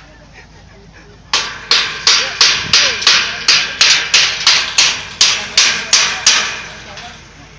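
A run of about fourteen sharp strikes, evenly spaced at close to three a second, each with a short ringing tail, starting about a second in and stopping near the end.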